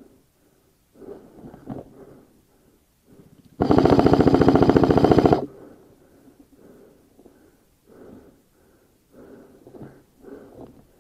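Airsoft electric rifle, an AM013 M4 Honey Badger, firing one full-auto burst of about two seconds a few seconds in: a rapid, even rattle of shots at about fourteen a second.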